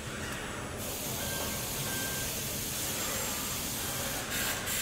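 Car-body assembly line with ABB industrial robots running: steady machinery hum and hiss, with two short bursts of hiss near the end.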